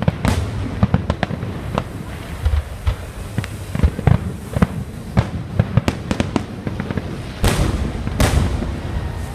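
Fireworks going off: a continuous run of sharp cracks and booms, with two bigger bangs and a rushing tail about seven and a half and eight seconds in.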